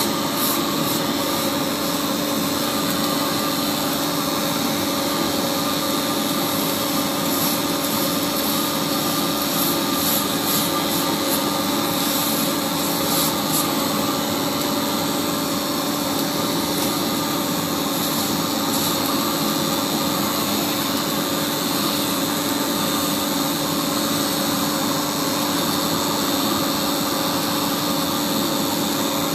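Polygonal steel pole welding machine running steadily: a constant mechanical hum under a broad hiss, with scattered sharp crackles in the first half.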